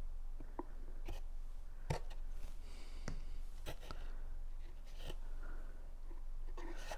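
Thick cardstock being handled and pressed at close range, with scattered small clicks, taps and light rustles as the glued handle tabs are worked into place.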